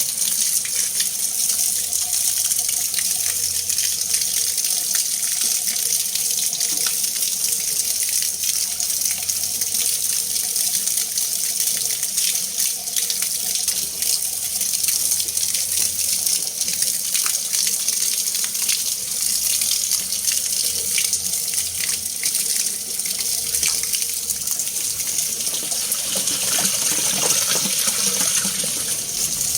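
Water being mixed: a steady, continuous rush of moving water with many small splashes and ticks through it.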